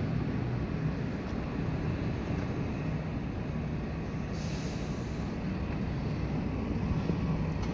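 City transit bus engine running with a steady low drone as the bus approaches, with a brief hiss about halfway through.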